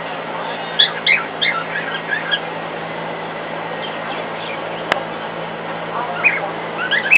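A cockatiel chirping and whistling in quick runs of short notes, one about a second in and another near the end, over the steady whoosh and hum of a hairdryer running in the next room. A single sharp click midway.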